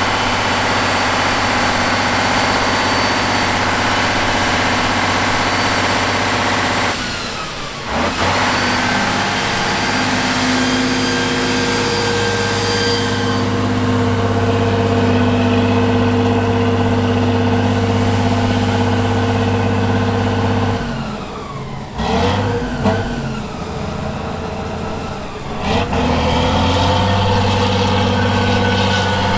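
Diesel engine of an 8x8 trial truck running hard under load as it pushes through deep muddy water. The engine note is steady, drops away briefly about a quarter of the way in and again for a few seconds about three quarters through, then picks back up.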